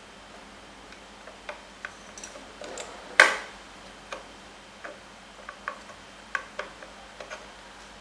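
Small clicks and taps of a Core 2 Duo processor being lifted out of its Socket 775 and handled, with one louder clack about three seconds in.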